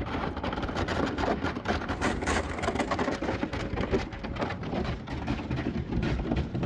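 Thin canal ice cracking and crunching against a boat's hull as it pushes through: a dense, continuous crackling of many small cracks over a low rumble.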